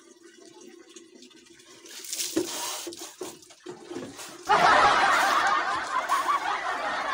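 Bucket bath: a few knocks of a water dipper against the bucket, then from about halfway a sudden steady splash of water poured over a body onto a concrete floor.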